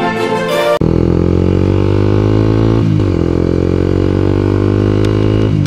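Intro music cutting off abruptly, then a 2012 Honda CBR250R's single-cylinder engine pulling away under acceleration. Its pitch climbs steadily, drops sharply at an upshift about three seconds in, climbs again and drops at a second upshift near the end.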